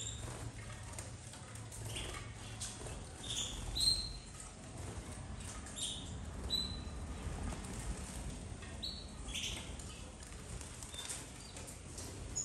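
Domestic canaries in an aviary giving short scattered chirps, with wings fluttering and small sharp taps as birds move about the perches.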